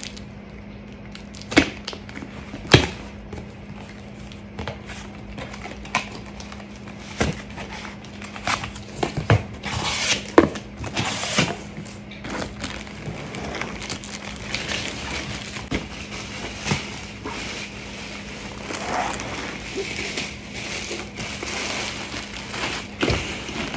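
Unpacking a cardboard shipping box: sharp knocks and scrapes of cardboard and tape being cut and the flaps opened, then rustling and crinkling of plastic wrap as a padded bag is lifted out. A faint steady hum runs underneath.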